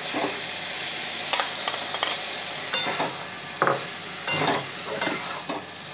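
Snake gourd and prawns sizzling in a metal wok while a metal spatula stirs them, with a steady frying hiss and several sharp scrapes and taps of the spatula against the pan.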